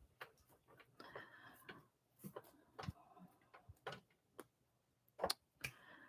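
Faint scattered light clicks and taps, with a brief soft rubbing about a second in: a cloth wiping down a glass craft mat. Otherwise near silence.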